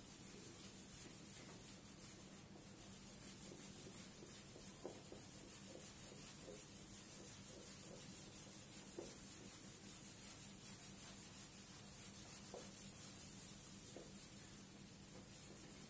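Cloth duster wiping marker writing off a whiteboard: faint, irregular rubbing strokes over a steady background hiss.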